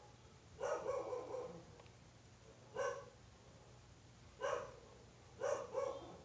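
A dog barking repeatedly in short barks, about six of them, some in quick pairs.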